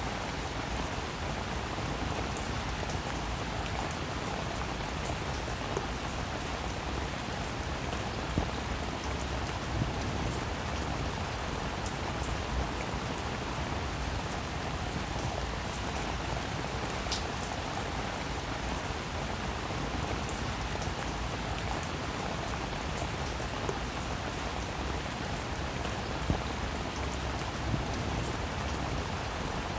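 Steady rain falling, with the occasional louder single drop ticking through.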